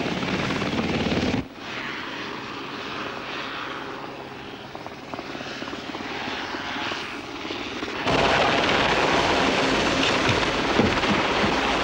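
Steady helicopter engine and rotor noise. It drops sharply about a second and a half in, then gets much louder and heavier about eight seconds in, as heard from at or inside the helicopter's open cabin door.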